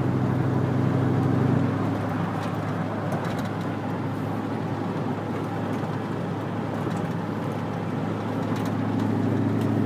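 Chevrolet Silverado pickup's exhaust through hollowed-out glass pack mufflers, heard from inside the cab while driving. A steady low drone drops back about two seconds in, leaving mostly road noise, and builds again near the end.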